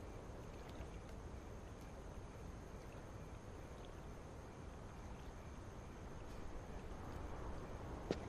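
Faint steady background ambience with a thin, high, steady tone running through it, swelling slightly toward the end, then a single sharp tap near the end.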